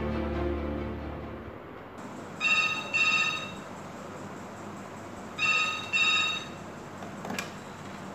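Landline desk telephone ringing with a double-ring cadence: two double rings about three seconds apart, then a single click near the end.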